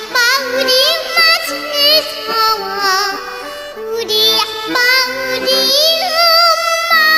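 A young girl singing with a wavering vibrato over instrumental backing that holds chords beneath her voice.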